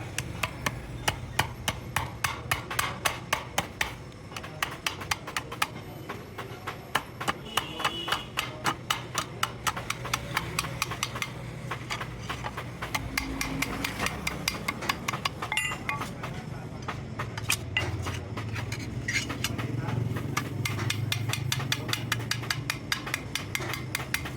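Rapid light knocks, about three or four a second, like tapping or hammering, most pronounced in the first few seconds, over a steady low hum.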